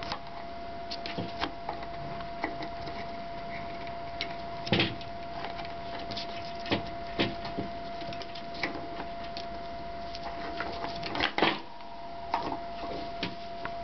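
Irregular clicks and knocks of small plastic toys as a black-headed caique climbs on and pecks at them, the loudest knocks about five seconds in and near the end, over a steady thin whine.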